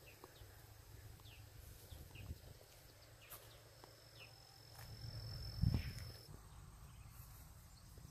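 Quiet outdoor ambience: a low rumble, faint high chirps of small creatures about every half second, and a thin steady high tone for about two and a half seconds in the middle. A dull thump a little past halfway is the loudest sound.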